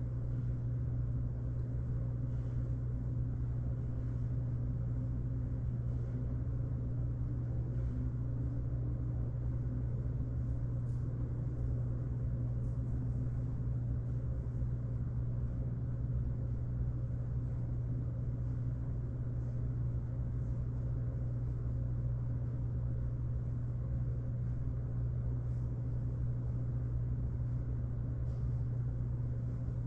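A steady low hum or rumble, unchanging throughout, with a few faint ticks above it.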